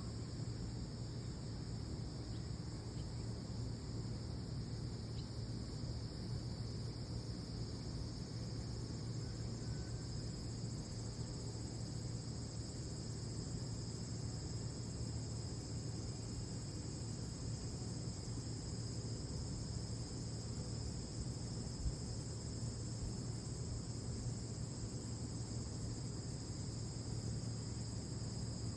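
Steady high-pitched insect chorus, several insects trilling without a break, over a low steady hum.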